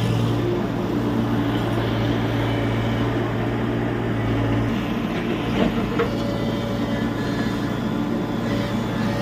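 Tata Hitachi EX70 Super Plus excavator's diesel engine running steadily with a low hum, with a short knock about five and a half seconds in and another just after.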